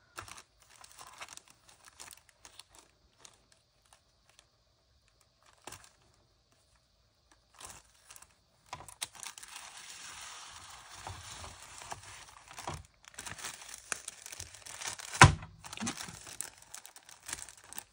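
A gift parcel being unwrapped by hand: faint small rustles as the twine is untied, then from about halfway through, steady crinkling and tearing of the grey wrapping paper, with one louder sharp rip a little after that.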